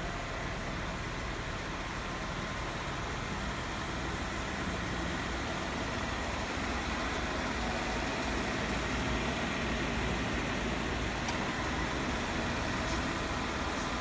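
Jeep Wrangler engine idling steadily.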